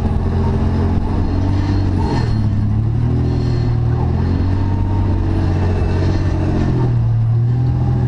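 Engine of a 3rd-gen Toyota 4Runner rock crawler running under load at low speed, its pitch rising and falling a couple of times as the throttle is worked over boulders.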